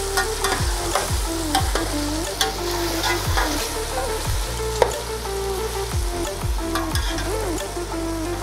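Chicken pieces and tomatoes sizzling in oil in a degchi (cooking pot) while being stirred and fried (bhuna) with a spoon. The spoon clicks and scrapes against the pot at irregular moments.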